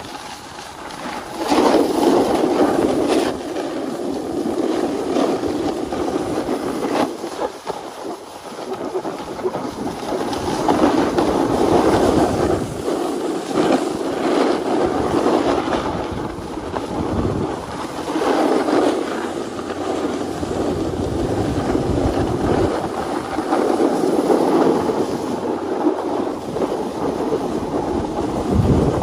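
Snowboard sliding and scraping over hard-packed groomed snow, a rushing, rasping noise that swells and eases every few seconds through the turns, with wind on the microphone.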